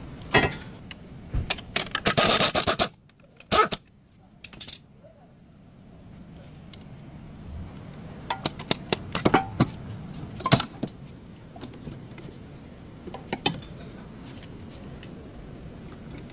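Metal tools and parts clinking, clattering and scraping in scattered bursts, with a longer loud scrape about two seconds in.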